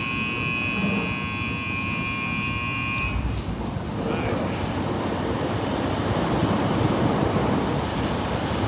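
Car wash tunnel's roll-up entrance door opening, with a steady high tone for about three seconds. After that comes a steady rushing noise with the low rumble of an SUV pulling up to the open door.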